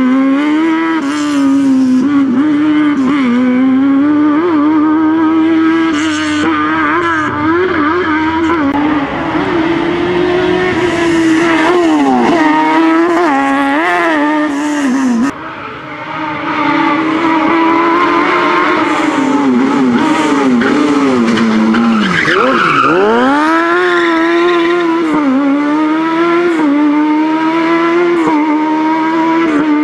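Fiat 126p with a swapped-in Honda CBR900RR inline-four motorcycle engine, run hard at high revs, its pitch repeatedly rising and falling with the throttle. Near the end of the second half the pitch drops sharply and climbs back up.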